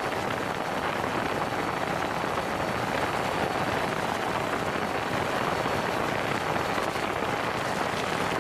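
DJI Phantom 3 quadcopter in flight, heard from a camera strapped right beneath it: a steady rushing noise of propeller wash over the microphones, with a faint steady high whine.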